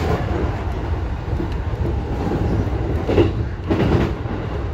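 Electric commuter train running on the line, heard from inside the front cab: a steady low rumble, with a couple of short clattering knocks from the wheels passing over the track about three and four seconds in.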